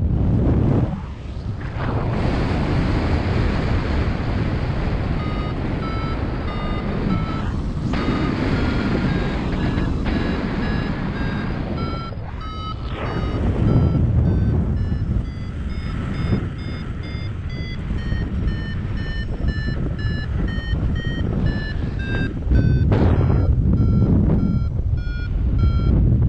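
Wind rushing over the microphone in flight, in loud gusts, with a paragliding variometer beeping in short, evenly spaced tones from about five seconds in. The beeps rise and fall in pitch as the climb rate changes: the vario's signal that the glider is climbing in lift.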